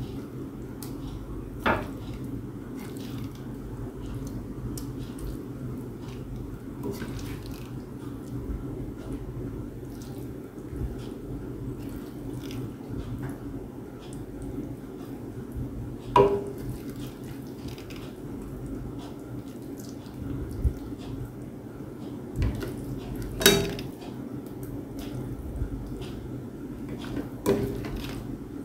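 Cooked lentils and rice being scooped with a serving spoon from a stainless steel pan into a glass baking dish: soft wet squishing and scraping, with four sharp clinks of the spoon on the cookware, the loudest about two-thirds of the way through. A steady low hum runs underneath.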